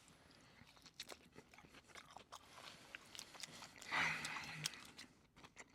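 Close-up mouth sounds of biting and chewing a fried chicken tender dipped in sauce: soft, scattered crunching and wet clicks. A short vocal sound from the eater comes about four seconds in.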